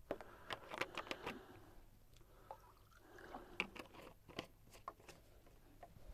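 Faint, irregular clicks and taps in a quiet room, in small clusters.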